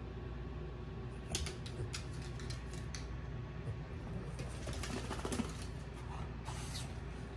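A French bulldog's claws clicking and tapping on a hardwood floor as it walks and turns, in irregular runs starting about a second in, over a low steady hum.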